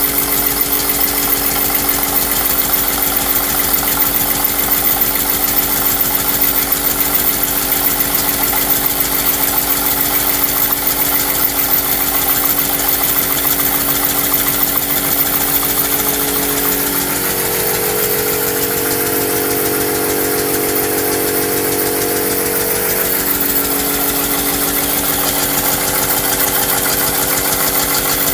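Homemade steam engine running fast on compressed air at about 8 bar, a rapid, even beat with a steady hum over it. A few seconds past the middle the hum changes pitch for several seconds, then settles back.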